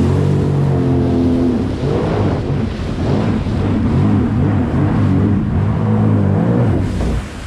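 2021 Sea-Doo Spark Trixx jet ski engine running under changing throttle, its pitch rising and falling, with wind and water rushing past. The engine sound dips briefly near the end.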